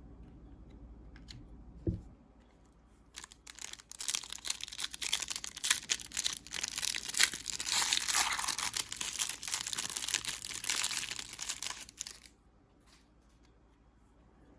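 A trading card pack wrapper being torn open and crinkled for several seconds, with a short thump just before it starts.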